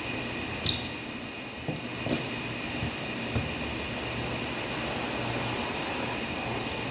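Steady mechanical hum with a thin high whine, broken by a few sharp clicks about a second in, near two seconds and again past three seconds.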